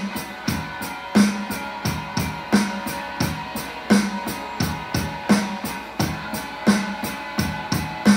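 Medeli DD-315 electronic drum pads playing a steady drum-kit groove: a strong kick-and-snare type hit about every second and a half, with lighter strokes in between, over a steady pitched backing part.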